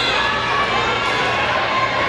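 Spectators cheering and shouting in a gym, a steady mix of many voices between rallies of a volleyball match.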